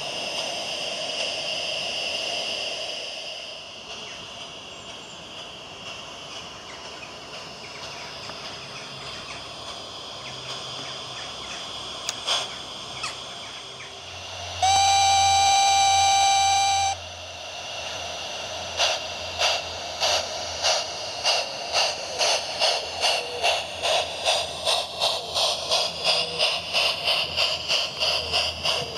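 Model steam locomotive's MyLocoSound Universal steam sound card giving one long whistle blast of about two seconds, the loudest sound, midway through. A couple of seconds later steady exhaust chuffs start and quicken as the locomotive gets under way.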